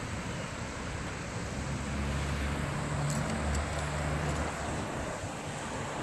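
Road traffic passing: a vehicle's low hum swells about two seconds in and fades again by about four and a half seconds, over a steady background hiss.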